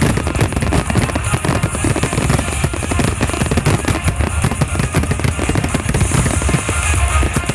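A fireworks display in a rapid barrage: many firework bursts a second over a continuous low rumble, with music playing along.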